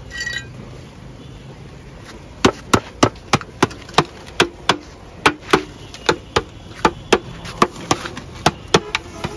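A small metal hand tool knocking repeatedly against a galvanized metal bucket pot, each strike sharp and briefly ringing, about three a second, starting a couple of seconds in. The knocking loosens a mulberry tree's root ball from the pot for repotting.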